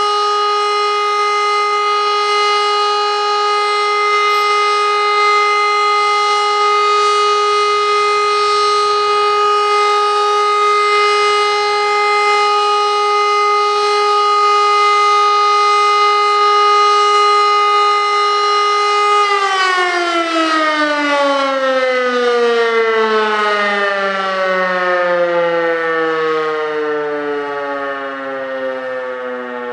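E57 electromechanical air-raid siren sounding the steady all-clear tone, one held pitch. About 19 seconds in it is switched off and the pitch falls away steadily as the rotor spins down.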